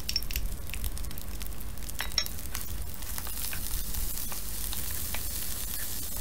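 Egg and rice frying in a hot pan, sizzling, with a wooden spoon clicking and scraping as it stirs them. The sizzle grows stronger about three seconds in.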